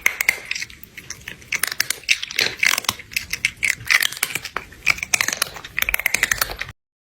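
A fast, irregular run of sharp crunching clicks that cuts off abruptly near the end.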